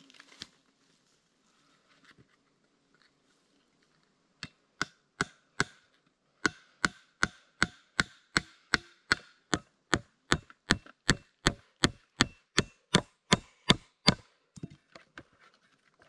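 Nails being driven into wooden planks with the back of a hatchet. A few spaced blows come first, then a steady run of about three blows a second, each with a short metallic ring. The blows stop a couple of seconds before the end, and a few light knocks follow.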